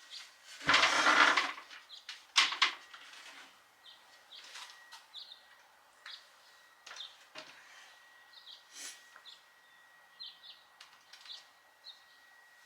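Scattered short bird chirps, with a loud burst of noise about a second in and a sharp knock just after two seconds. A faint steady high tone runs underneath.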